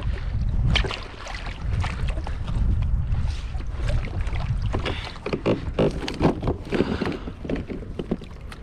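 Wind rumbling on the microphone, with splashing and a run of knocks and thumps as a small yellowfin tuna is hauled from the water onto a plastic kayak; the clatter is heaviest in the second half.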